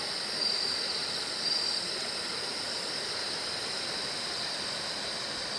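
Night insects, crickets among them, trilling steadily in a high-pitched band, over a soft even hiss.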